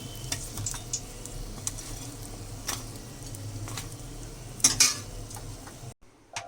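Food frying in hot oil, with a steady sizzle and a metal utensil clicking against the pan now and then, twice louder near the end. It cuts off suddenly, and a chime sounds as music begins.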